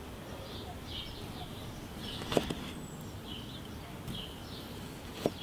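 Fallkniven Erna kitchen knife knocking on a plastic cutting board as it cuts through thin tomato slices: two sharp knocks, about two seconds in and again near the end.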